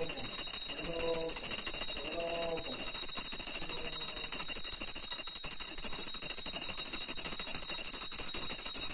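Hand-held pooja bell rung steadily and continuously during the aarti, a fast unbroken jangle with a high ringing tone. A voice is heard briefly in the first few seconds.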